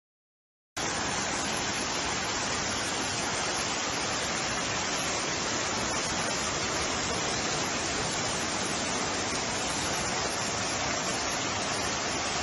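Steady, even rushing of fast-flowing floodwater, starting after a brief silence about a second in.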